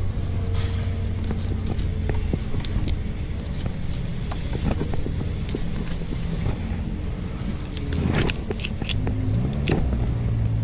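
Fillet knife drawn along the backbone of a large horse-eye jack, giving scattered faint scrapes and ticks. Under it runs a steady low hum that sounds like a nearby motor.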